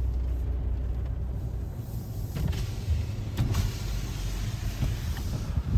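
Car heard from inside the cabin: a low engine and road rumble as it moves off. About two seconds in, a wider hiss of wet road and rain comes up, with a couple of faint clicks.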